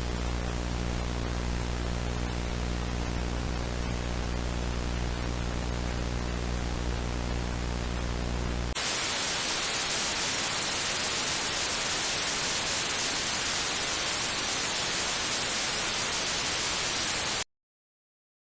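A steady electrical hum with a row of overtones over a layer of hiss, switching abruptly about nine seconds in to brighter, even television static hiss, which cuts off suddenly near the end.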